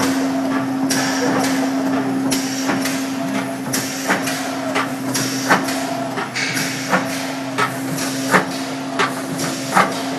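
Brine-injection machine for whole chickens running: a steady motor hum under sharp, irregular mechanical clacks, about two a second.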